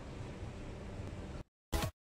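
Steady hiss of outdoor background noise that cuts off abruptly about one and a half seconds in, followed near the end by a brief, loud sound effect of an animated intro.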